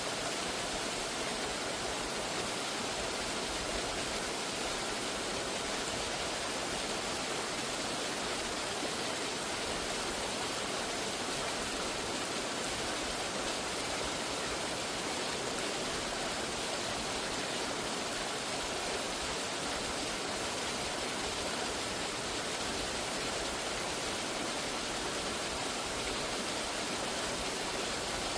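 Steady rush of a waterfall, an even wash of falling water with no breaks or changes.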